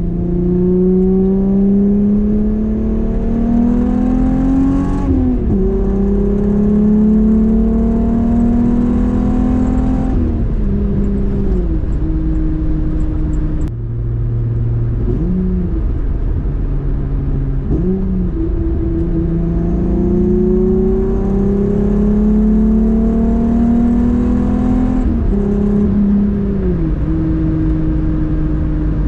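Volkswagen VR6 engine pulling hard under acceleration, its pitch climbing for several seconds and then dropping at each upshift, three times over, with steadier cruising between the pulls.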